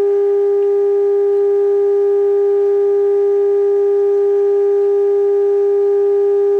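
Zenith AA5 tube radio's speaker giving a loud, steady test tone of about 400 Hz with faint overtones: the signal generator's modulated 455 kHz signal coming through the IF stages during alignment.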